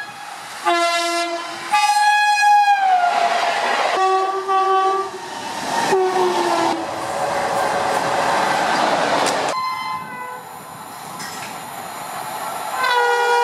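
Indian Railways electric locomotive air horns blowing in a series of loud blasts, two of them dropping in pitch as the train goes past, then the noise of a passing train on the rails, and another long steady horn blast near the end.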